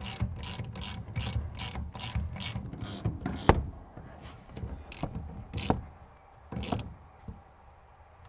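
Ratchet wrench clicking as it tightens the top-mount nut on a rear suspension strut, about three clicks a second. The clicking stops on a louder click about three and a half seconds in, then a few separate clicks follow.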